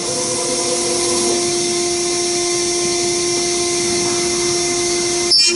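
Table-moving CNC router spindle running with a steady whine while drilling holes in aluminium extrusion. Near the end a short, louder, harsher burst of cutting noise comes as the bit plunges into the metal.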